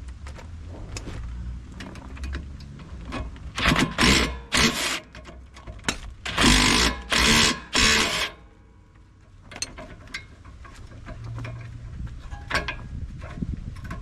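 Hand ratchet wrench working a stabilizer link nut, with scattered clicks and then five short bursts of fast ratcheting about halfway through.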